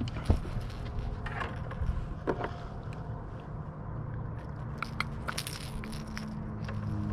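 Handling noise as a just-caught bass is held and moved about on a bass boat: scattered clicks, knocks and scrapes over a low steady rumble, with a sharp knock shortly after the start and a cluster of clicks a little past halfway.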